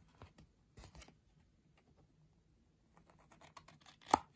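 Scissors trimming the overhanging part of a sticker off a postcard edge: light snips and scratches, with a sharp click near the end.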